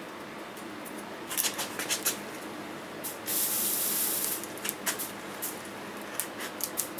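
Juniper wood fire burning in a tin-can rocket stove, crackling with sharp pops, and a hiss lasting about a second midway.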